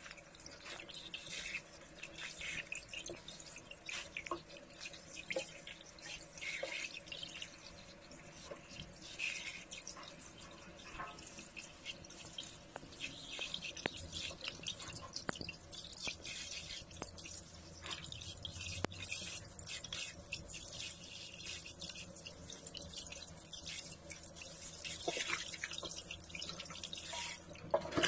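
Water dripping and splashing in a stainless-steel kitchen sink as raw chicken pieces are rinsed by hand in a pot of water, with small irregular wet splashes and drips.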